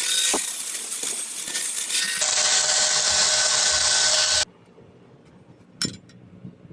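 A power tool working steel: a loud, harsh noise that changes character about two seconds in and cuts off suddenly, followed a moment later by a single light metallic clink.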